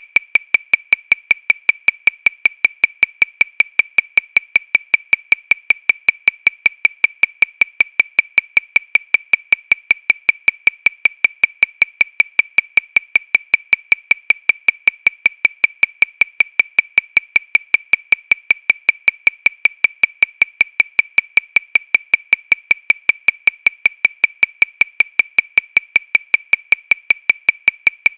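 Metronome clicking steadily at 314 beats per minute, about five short, high clicks a second, all equally loud with no accented beat.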